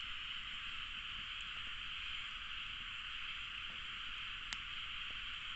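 Wood fire burning in a Solo Stove Yukon fire pit: a steady hiss with a few faint crackles and one sharp crack about four and a half seconds in.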